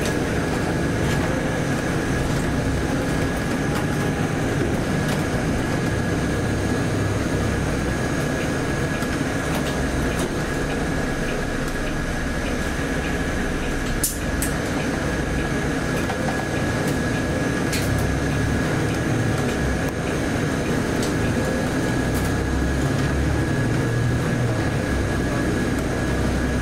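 Cabin noise inside a Volvo B8RLE city bus: the diesel engine runs under steady road noise. A thin steady whine runs throughout, and a few sharp clicks or rattles come through, the loudest about halfway.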